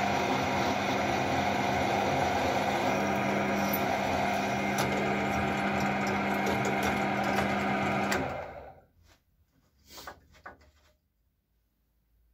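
Bench drill press running with a steady motor hum while drilling a steel plate, then switched off about eight seconds in and spinning down over under a second. A few light knocks follow.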